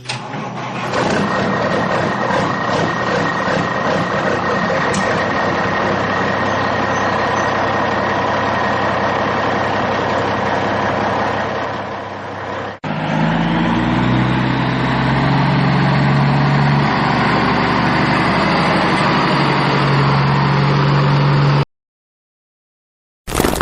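Vehicle engine running steadily; about 13 s in it cuts abruptly to a second, lower-pitched engine sound with a steady hum, which stops dead shortly before the end.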